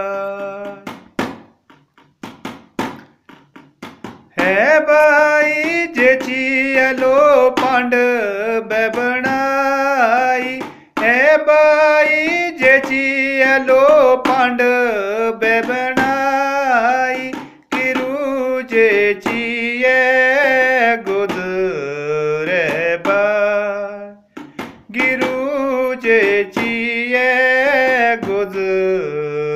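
A man singing a melodic song with long, ornamented held notes, to sharp percussion strokes that keep time. Near the start the voice stops for about three seconds and only the strokes are heard.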